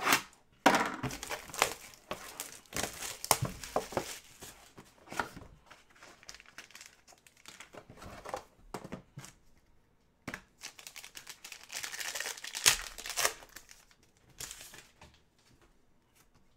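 Plastic shrink-wrap on a trading-card box being slit with a small knife and torn off, crinkling and tearing in several bursts, mixed with light clicks and scrapes of cardboard as the box lid is opened.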